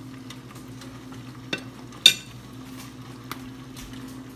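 Onion gravy with hamburger steak patties simmering in a skillet, a faint sizzle with small bubbling pops over a steady low hum. Metal tongs clink down against a plate a few times, the loudest clink about two seconds in with a brief ring.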